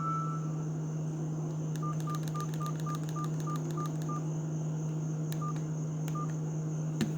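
Verykool S135 feature phone keypad beeps: a run of about eight short, identical high beeps at roughly four a second, each with a click of the key, then two more single beeps a moment apart, as the phone's keys are pressed.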